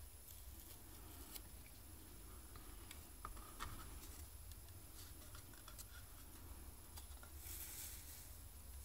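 Faint handling noises: small clicks and rubbing as fingers press and smooth a piece of yellow masking tape onto a plastic model aircraft, with a brief crinkle of the tape near the end.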